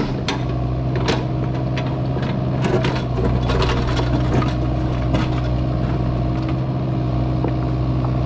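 Kubota U55-4 mini excavator digging a trench: its diesel engine runs at a steady working speed under hydraulic load. Scattered clicks and knocks come from the bucket working the soil.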